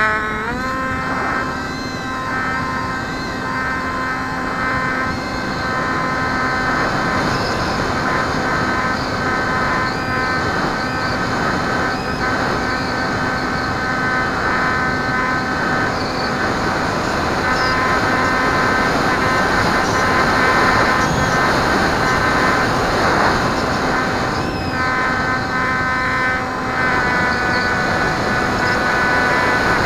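Brushless electric motor of a Bixler foam RC plane running at high throttle: a steady whine with several overtones, with wind noise on the onboard camera's microphone as the plane takes off and flies.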